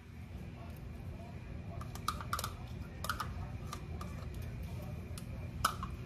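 A few light clicks and taps scattered over a steady low hum: about two seconds in, again around three seconds, and near the end.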